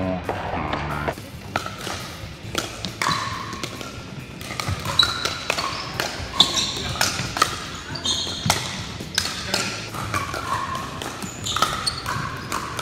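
Pickleball rally: paddles hitting the hollow plastic ball in sharp pops at irregular intervals, with the players' shoes on the hard court.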